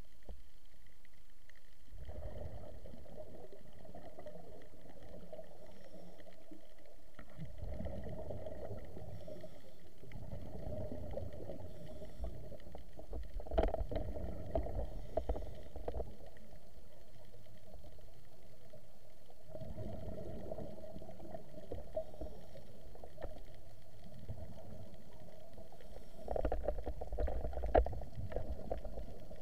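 Scuba regulator exhaust bubbles gurgling out in long bursts a few seconds apart, a diver breathing out underwater, heard through an action camera's waterproof housing.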